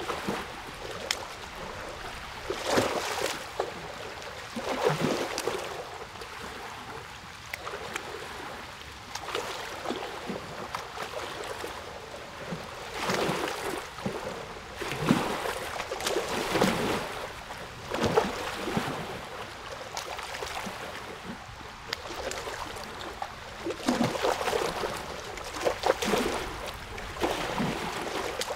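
Running water splashing and gurgling in irregular surges every second or two, over a steady wash.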